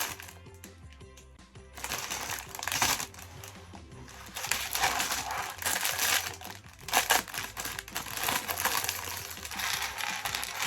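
Plastic rustling and rattling of LEGO pieces being handled, irregular and starting about two seconds in, over background music.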